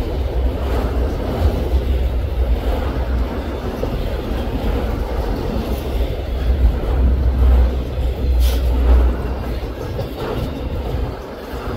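Freight train of auto rack cars rolling past at track speed: a steady, loud rumble of steel wheels on the rails.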